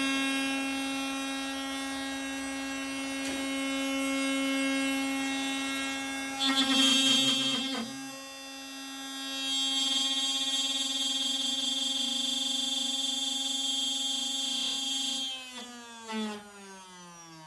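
CNC router spindle running with a steady high whine while a half-inch bit cuts wood, with a louder, rougher stretch of cutting noise about six to eight seconds in. Near the end the spindle is switched off and winds down, its whine falling steadily in pitch; the cut was stopped because the workpiece had started sliding.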